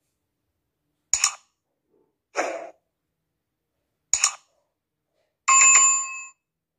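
Subscribe-button animation sound effects: a mouse click about a second in, a short soft noise, a second click about four seconds in, then a bright bell chime that rings for just under a second near the end.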